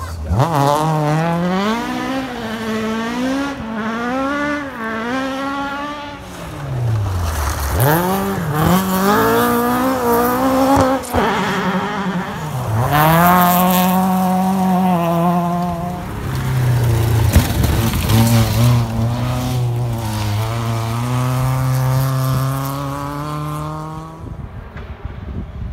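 Rally car engines at full throttle on a gravel stage. The pitch climbs and drops sharply again and again through gear changes and lifts. In the later part a lower, steadier engine note holds, then fades near the end.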